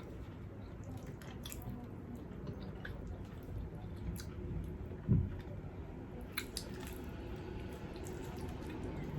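Wet chewing and mouth sounds close to the microphone, with scattered small clicks and one dull thump about five seconds in.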